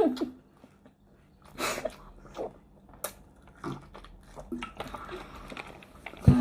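People chewing and biting into fried chicken hot wings, with short, irregular crunching and wet mouth sounds and a sharp click about three seconds in.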